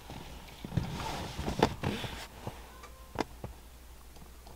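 A few light clicks and knocks from a hand handling the flip-down roof monitor, over a faint steady low hum.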